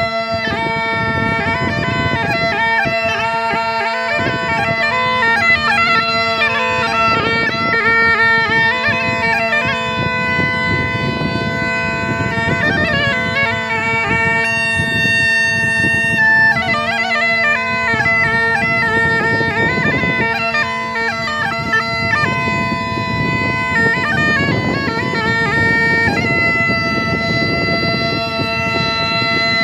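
Masakbeen, the Kumaoni bagpipe, playing a folk tune: the chanter's ornamented melody moving over a steady drone.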